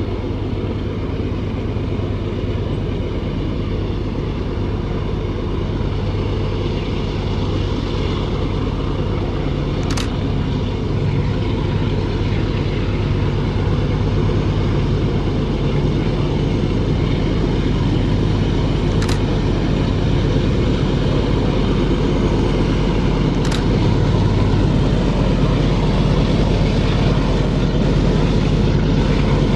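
A lash-up of five GE diesel-electric freight locomotives working hard under load up a steep grade, a steady deep engine drone that grows slowly louder as the train approaches.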